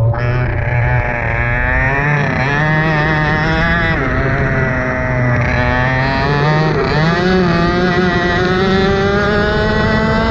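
Racing engine running hard, its pitch climbing steadily with three sharp dips, about two, four and seven seconds in.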